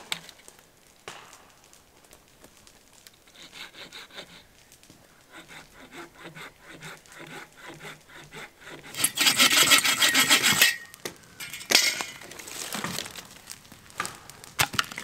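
Hand saw cutting through a dead log for firewood, in rhythmic push-pull strokes that turn loud and fast for about a second and a half in the middle. Near the end come a few sharp wooden knocks.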